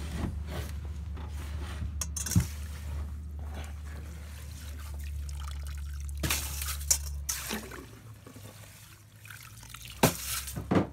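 Slotted ice skimmer stirring and scooping slush and ice chips in a water-filled ice-fishing hole, water trickling and dripping, with a few sharp knocks. A low steady hum runs underneath and stops about seven seconds in.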